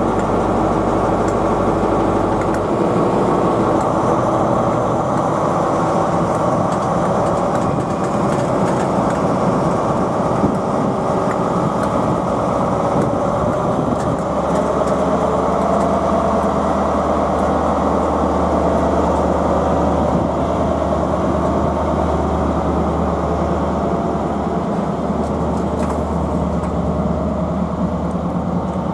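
Class 43 HST power car's MTU V16 diesel engine running under power as the train pulls away, a steady heavy drone that deepens and strengthens about halfway through, with the coaches beginning to roll past near the end.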